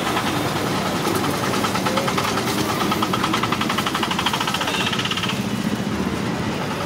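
An engine running steadily with a rapid, even knocking rhythm, over busy street noise.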